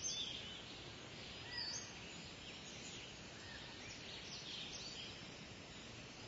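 Faint birds chirping, short scattered calls over a steady background hiss.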